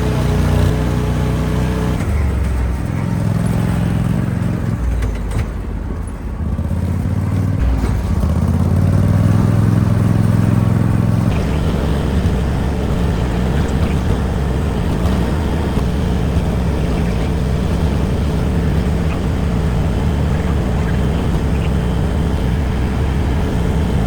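Argo amphibious ATV's engine running under way, changing pitch for the first ten seconds or so, then settling into a steady drone.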